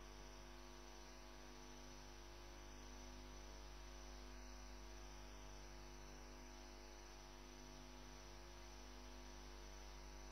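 Near silence: only a faint, steady electrical hum made of many evenly spaced tones.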